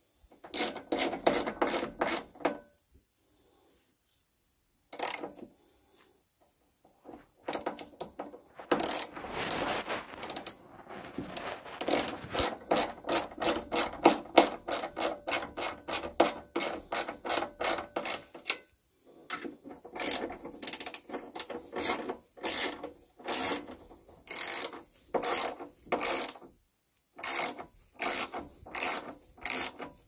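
Hand ratchet wrench clicking in rapid runs of strokes as it turns bolts, stopping and starting with short pauses between runs.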